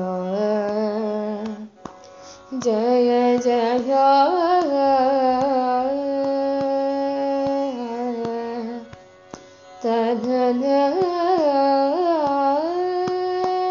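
A female voice singing the closing phrases of a Carnatic devotional song: long held notes decorated with sliding, oscillating ornaments, broken by two short pauses about two and nine seconds in, over faint regular ticks.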